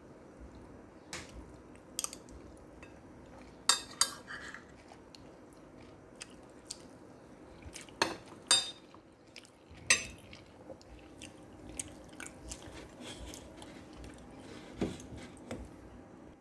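Metal spoon clinking and scraping against a ceramic plate: a dozen or so sharp, irregular clinks, some ringing briefly, with the loudest around 4, 8 and 10 seconds in.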